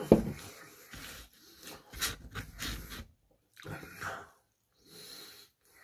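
Close-up eating noises: a soda can set down on the table with a sharp knock at the start, nasal breathing, then biting into and chewing a fried spring roll.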